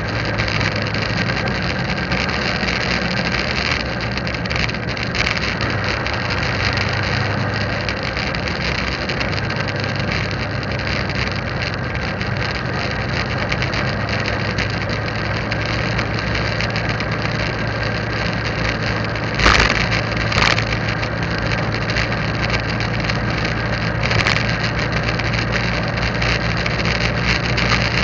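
A motorbike riding along a paved road: steady engine and road noise. Two sharp knocks about a second apart come about two-thirds of the way in.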